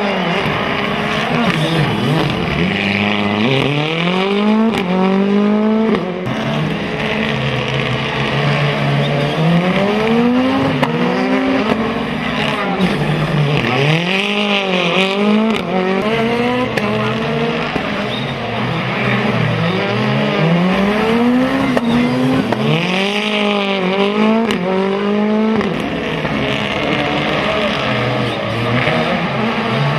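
A Ford Fiesta rally car's engine revving hard as the car accelerates and brakes through a series of corners. The pitch climbs through the gears, drops sharply at each shift or lift, then rises again, several times over.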